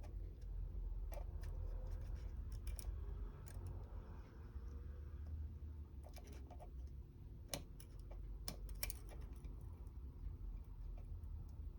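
Scattered small clicks and scratches of hand tools working on an iPhone 13 mini's screen glass, over a steady low hum.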